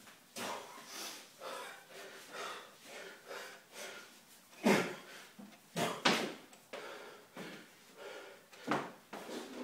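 A man breathing hard and fast, about two breaths a second, winded from a high-intensity set of ring dips, with two louder breaths around the middle.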